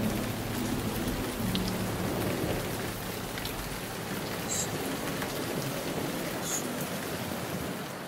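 Heavy rain falling, a dense steady hiss heard from inside a moving car, with a few faint ticks of drops.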